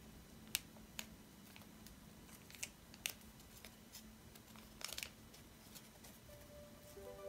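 Folded origami paper units being handled and slotted together: a scattering of short, crisp paper clicks and rustles over a faint low hum. A few soft musical tones enter near the end.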